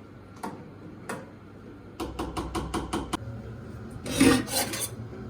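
A spoon stirring water into too-sour homemade yogurt in a pot. A few clicks, then a quick run of clicks against the pot, then a loud scrape about four seconds in.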